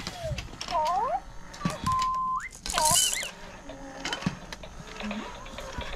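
Baby's sound-making toys: short whistle-like tones and pitch glides, one held flat and then hooking upward, among clicks and a brief rattling burst about three seconds in.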